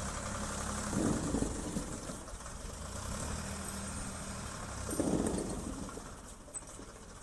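Ford 3600 tractor engine running as the tractor drives off, with two louder rushes of noise about a second in and about five seconds in, and the sound easing off near the end.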